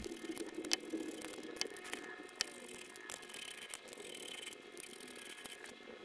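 Faint, irregular small clicks and rattles from a plastic game controller case being handled and a small Phillips screwdriver working its screws.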